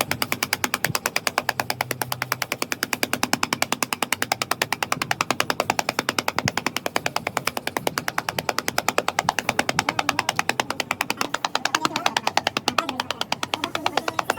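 Ammunition-making machine running with a fast, even mechanical knocking, about seven strokes a second, which starts suddenly.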